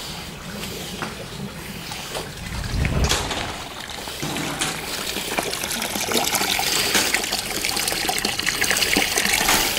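Water trickling and splashing steadily from a small garden pond fountain, louder from about halfway on. There is a brief low rumble about three seconds in.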